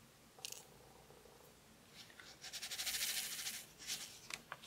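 Square resin diamond-painting drills rattling in a plastic tray as it is shaken to line them up in the grooves. There is a single click near the start, then a dense patter of tiny clicks lasting over a second from about two seconds in.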